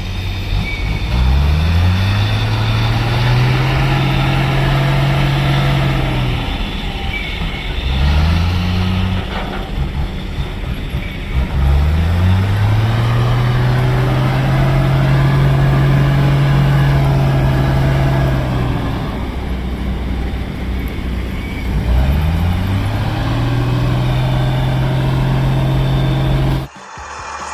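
Dump truck engine revving four times: each time the pitch climbs, holds steady for a few seconds, then falls back. It cuts off suddenly near the end.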